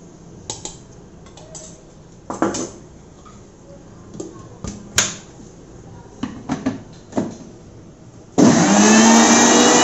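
Electric mixer grinder (Panasonic) switched on about eight seconds in, its motor whirring steadily as it beats eggs with powdered sugar. Before that come a few light clinks and knocks as a spoon taps sugar into the steel jar and the lid is fitted.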